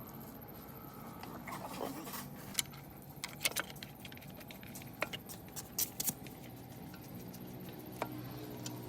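Metal tools and engine parts clinking and tapping now and then during engine work, a few sharp clinks at a time over a faint steady low hum.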